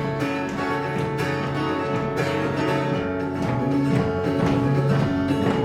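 Acoustic guitar playing a steady run of chords as the instrumental introduction to a song.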